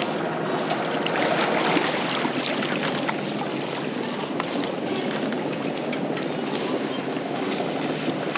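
Amel Santorin 46 sailing yacht motoring slowly under engine: a steady low engine drone under wind on the microphone and water noise, with a few light clicks.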